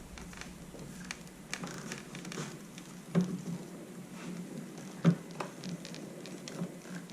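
Light clicks, taps and small knocks from handling tools and motorcycle parts, with two sharper knocks about three and five seconds in.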